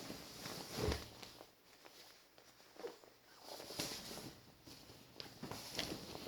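Rustling and small clicks of a nylon snowsuit and webbing being handled, with a soft low thump about a second in.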